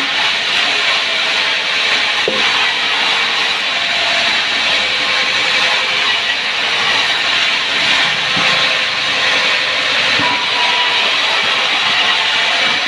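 Power saw cutting through wood, a loud steady hissing rasp with no break.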